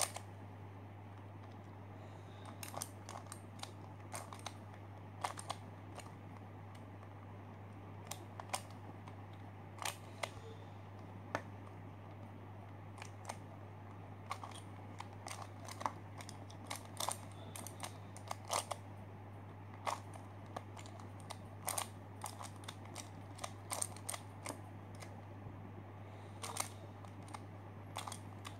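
ShengShou spring-tensioned skewb puzzle twisted by hand: irregular plastic clicks and clacks as its corners turn, in quick runs with short pauses.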